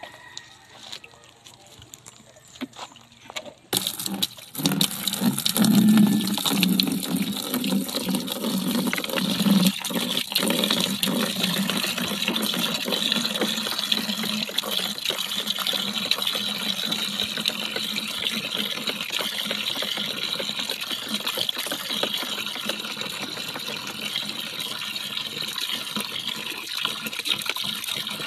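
Water running steadily into a plastic drum, starting suddenly about four seconds in and continuing without a break.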